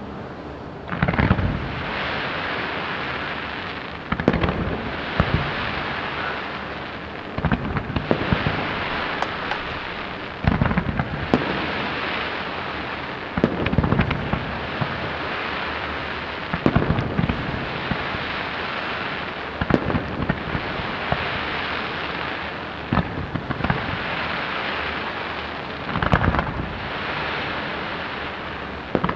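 Aerial fireworks shells bursting, a sharp bang every one to three seconds and sometimes two in quick succession, with a steady hiss in between.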